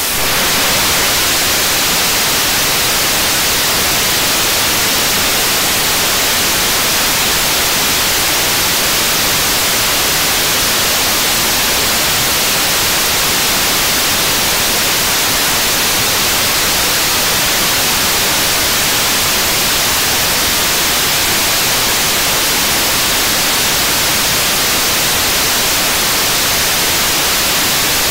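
KARI 75-tonne-class kerosene–liquid-oxygen rocket engine firing in a hot-fire test: a loud, steady rushing noise, heavy in hiss, that begins abruptly right at the start and holds level throughout.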